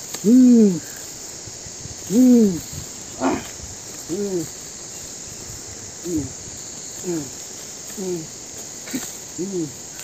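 A series of short hooting calls, each rising then falling in pitch and lasting about half a second, repeated roughly once a second, over a steady high-pitched drone of insects.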